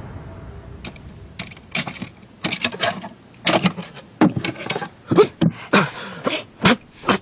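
Rummaging in a wooden chest: a string of irregular knocks, clicks and rattles as objects inside are shifted about, starting about a second in.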